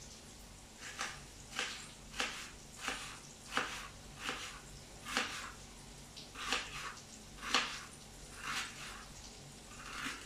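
Small kitchen knife slicing through peeled shallots held over a plastic plate: a crisp cut roughly every two-thirds of a second.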